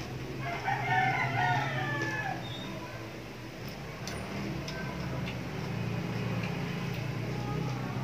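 A rooster crowing once, one call of about two seconds starting about half a second in, over a steady low hum.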